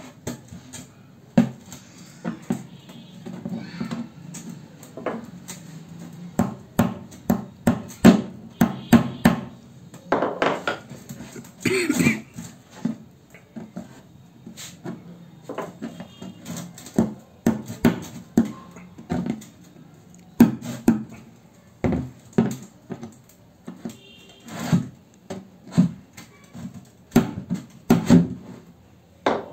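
Irregular knocks and clicks of a metal tool worked against the side of a hollow plastic jerry can, punching small holes in it, one to three strikes a second.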